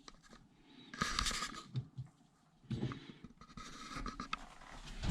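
Small scratching and rustling handling noises in short spells, as a plumbing fitting and its washer are worked on by hand, with a dull thump near the end.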